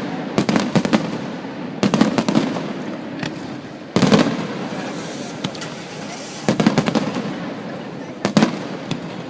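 Fireworks display: volleys of sharp bangs and crackles come in about five clusters, one every one to two seconds.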